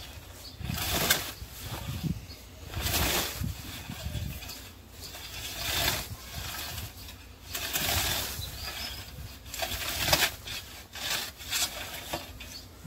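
Hand scythe mowing green fodder growth (alfalfa sown with maize): a steady series of swishing cuts, one stroke about every second and a half.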